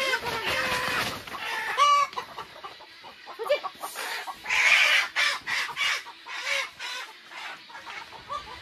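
Hens clucking and squawking as they are pulled out of plastic nest crates, with loud calls in the first two seconds. About four seconds in comes a short burst of rustling, then scattered scratches and quieter clucks.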